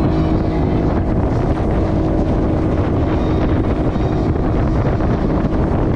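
Motorboat engine running steadily while underway, with wind buffeting the microphone.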